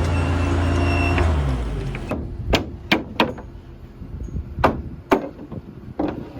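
A motor or engine hums steadily, then dies away about a second in. After that come about six sharp, irregular knocks of nailing on the roof sheathing.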